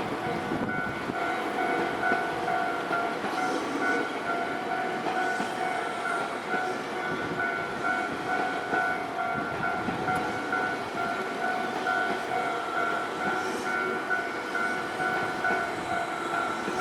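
Railway level-crossing alarm ringing its repeating two-tone clang while a train runs over the crossing, with wheel and track rumble underneath.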